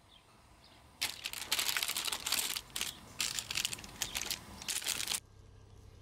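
Baking paper crinkling and crackling in a metal baking tray as a soft braided bread loaf is laid onto it and settled. A dense run of sharp crackles lasts about four seconds and cuts off suddenly near the end.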